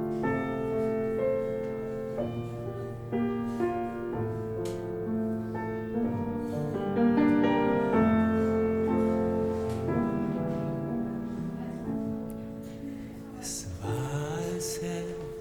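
Piano playing slow, held chords, a song's introduction; near the end a singing voice comes in.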